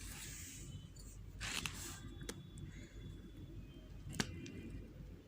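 Handwriting: two short scratchy writing strokes in the first two seconds, then a few light clicks, with one sharp click about four seconds in, over a steady low hum.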